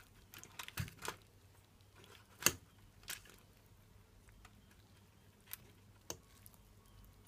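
Scattered light clicks and taps of handling a tray of oven-baked chicken pieces as they are turned: a quick cluster in the first second, the sharpest tap about two and a half seconds in, and a few single ones after.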